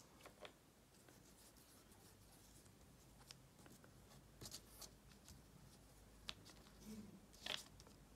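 Near silence, with a few faint taps and scrapes of acrylic paint being dabbed onto paper; the strongest comes near the end.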